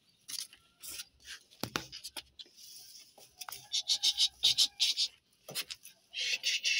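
Scratchy scraping and rubbing in short, quick strokes, with a couple of sharp knocks, from handling at the rusty frame of a wire-mesh pigeon coop door.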